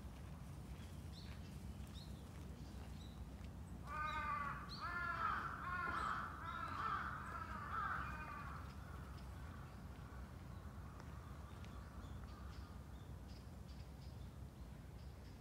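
Crow cawing: a run of harsh caws from about four seconds in, lasting some four seconds, over a steady low rumble.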